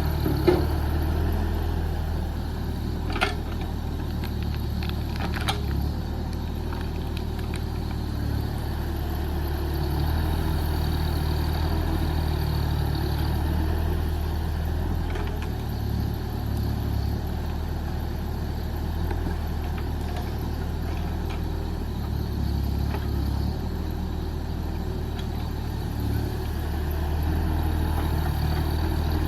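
JCB JS30 Plus mini excavator's diesel engine running steadily, its level rising and falling slightly as the machine works. Three sharp knocks come in the first six seconds.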